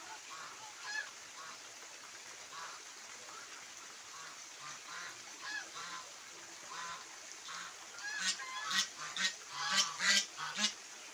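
Domestic white geese honking, with scattered calls at first and then a run of loud honks in quick succession about eight seconds in.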